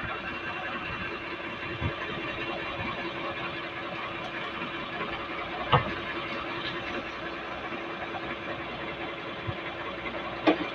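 An engine runs steadily, giving an even drone, and a few short knocks sound over it about two, six and ten seconds in.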